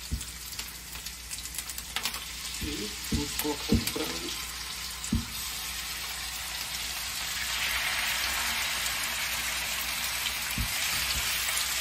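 Onion and garlic frying in olive oil in a pan: a steady sizzle that grows louder about two-thirds of the way through as raw chicken strips go into the pan. A few knocks and scrapes of a knife on a wooden cutting board come early on.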